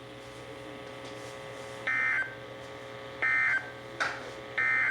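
Three short bursts of warbling two-tone digital data, about 1.3 seconds apart, over faint radio hiss: the SAME end-of-message code that closes a NOAA Weather Radio Emergency Alert System warning.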